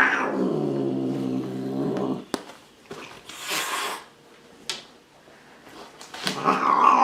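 An angry cat growling and yowling: one long, low, drawn-out call that stops about two seconds in, a few short scuffling noises, then another loud yowl near the end.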